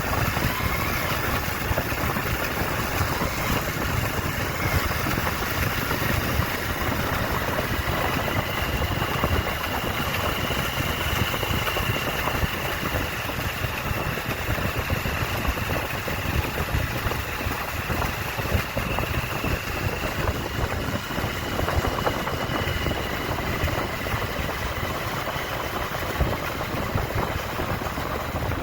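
A steady vehicle engine running without change, with no pauses or revving.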